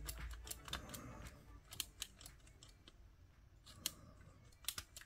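Irregular small, sharp clicks and taps of hand tools and small parts handled on a cassette Walkman under repair, quieter in the middle, with two clicks close together near the end.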